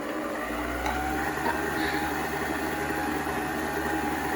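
Electric stand mixer running steadily, its motor beating cake batter in the bowl.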